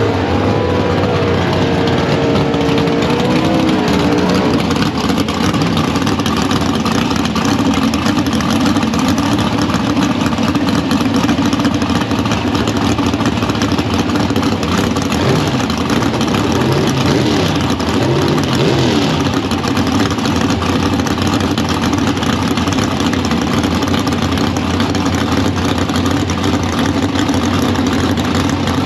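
Drag-racing car engine running steadily at idle, with the falling note of another car fading away in the first few seconds.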